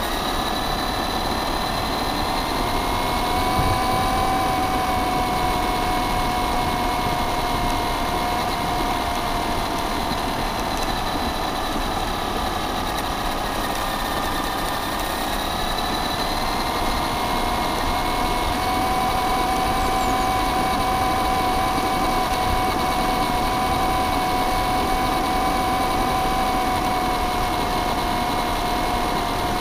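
Electric motor and gear drive of a Traxxas Stampede 4x4 RC car whining steadily as it drives, heard from a camera mounted on the car, its pitch shifting slightly with speed. Underneath runs a steady noise of the tyres rolling over gravel.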